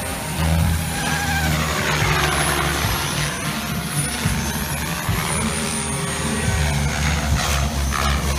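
Small electric OXY 3 RC helicopters flying aerobatics: a high rotor and motor whine that sweeps down and back up in pitch as they manoeuvre, over a low steady rumble.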